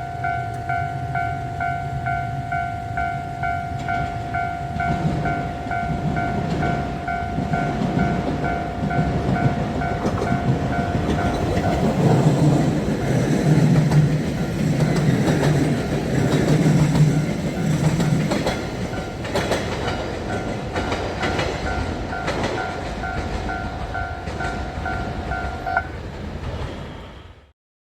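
A railway level-crossing warning bell rings in fast, evenly repeated strokes while a JR train passes over the crossing. The train's rumble is loudest midway. The bell stops shortly before the end.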